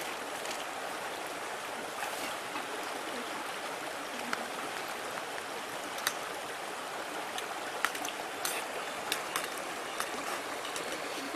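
Steady rush of a nearby river, with scattered small clicks.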